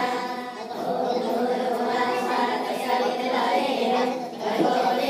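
Several voices singing together in long held notes, a slow devotional-style chant.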